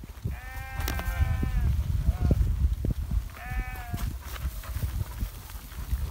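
Sheep bleating: one long bleat in the first two seconds and a shorter one about three seconds in, over a steady low rumble.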